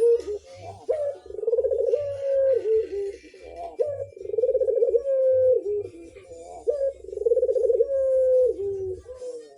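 Puter (Barbary or ringneck dove) calling over and over, a run of rolling coos about every second or two, each held and then dropping in pitch at its end.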